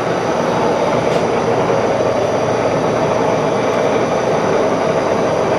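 Monarch engine lathe running at a steady speed: an even mechanical whir with a few steady tones.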